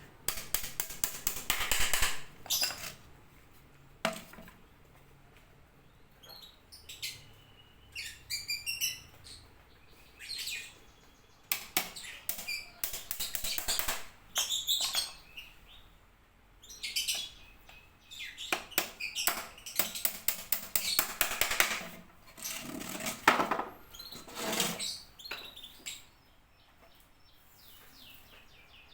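Repeated bursts of clicking and rattling from bird-cage parts being handled and fitted together, with a bird chirping briefly now and then.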